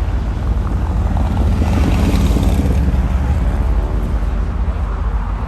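AT-6 Texan's nine-cylinder Pratt & Whitney R-1340 radial engine and propeller going by, over a steady low rumble. It swells to its loudest about two seconds in, then eases off.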